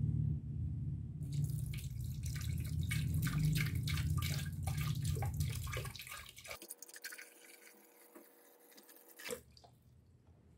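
Water being filled into a small glass aquarium, splashing over the stones and against the glass. It starts suddenly and is loud for about six seconds, then goes quieter for a few seconds before stopping.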